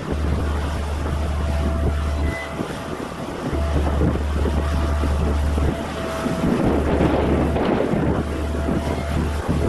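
Wind buffeting the microphone in gusts, over the distant running engine of a small earthmoving machine working the dirt.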